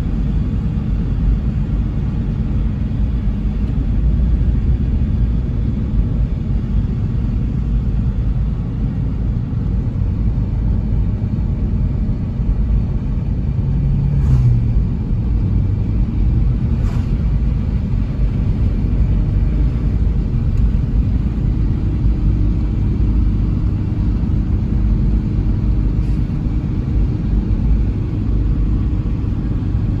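Steady low rumble of a road vehicle running, with two short clicks a few seconds apart midway and a faint steady hum joining in past the middle.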